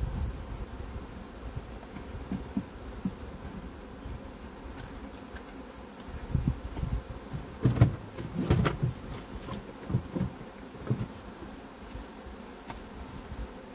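Honeybees buzzing around an open hive, with single bees droning close past the microphone now and then, and a few sharp clicks and louder buzzes about eight seconds in.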